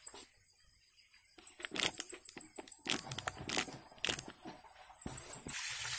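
Crinkling and clicking of a plastic sheet wrapped round an electrical starter panel as it is handled. About five seconds in, a steady rushing hiss begins.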